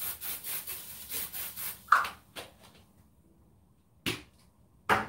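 Seasoning shaken over potatoes in an air fryer basket: a quick run of about nine rasping shakes, roughly five a second, then a single sharp clank. Two shorter knocks come near the end.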